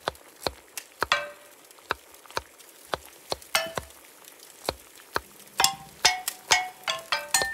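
Spoons tapping on clay bowls and pots, played like a set of drums: scattered single taps at first, some ringing with a clear pitch, then a quicker run of ringing notes in the last two seconds.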